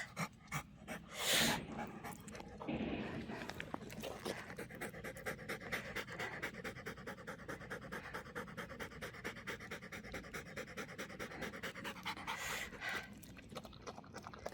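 Dog panting hard in a quick, even rhythm after running fetch, fading near the end.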